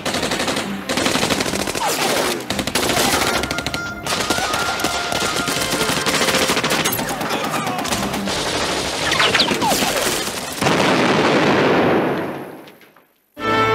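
Recorded automatic-gunfire sound effect played over a stage sound system: rapid machine-gun fire in long bursts, loud. It turns into a denser noisy stretch about three-quarters of the way in, then fades out near the end.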